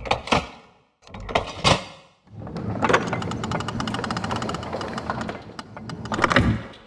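Glitchy logo-intro sound effects. Several sharp hits, each with a fading tail, cut out twice, then give way to a fast stuttering run of rapid clicks over a low rumble. A final pair of hits near the end fades away.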